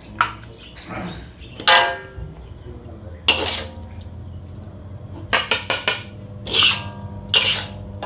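Metal spatula scraping and knocking against a metal wok as stir-fried food is scooped into a bowl. About six knocks, three in quick succession about five seconds in, each leaving a brief ringing tone, over a low steady hum.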